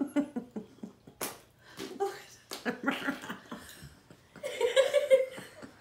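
Several women laughing hard, with giggles and chuckles and a louder burst of laughter near the end. In the first seconds, a few short squelches come from noise putty squeezed in the hand.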